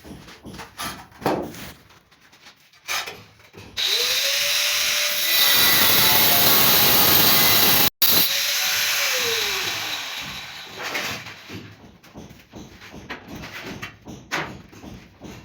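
A handheld power tool spins up about four seconds in and runs loudly for about six seconds, with a momentary break partway, then winds down. Scattered knocks and taps come before and after it.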